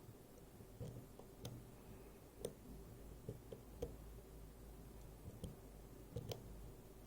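Faint, irregular little clicks and ticks of a pick probing the pins of a Miwa JN dimple lock, about nine in all.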